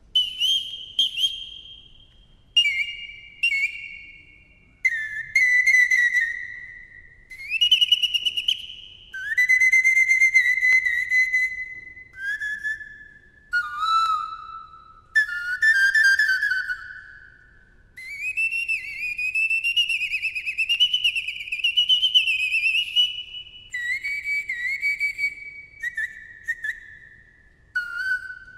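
Curved wooden Romanian pan flute (nai) playing an unaccompanied free-time solo passage that imitates birdsong. High short phrases are separated by brief pauses, with pitch slides and a long trilling, warbling run past the middle.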